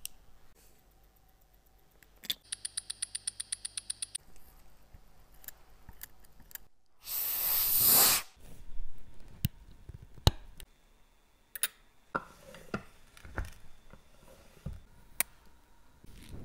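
Small sounds at a watchmaker's bench: about two seconds in, a quick run of clicks over a faint hum lasting about two seconds; about seven seconds in, a hiss of air from a blower nozzle aimed at a steel watch case, the loudest sound; then scattered light clicks and taps of tools on metal.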